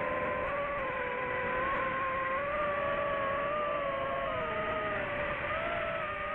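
DJI FPV drone's motors and propellers whining steadily over a rushing hiss. The pitch wavers, sagging about four to five seconds in and then edging back up.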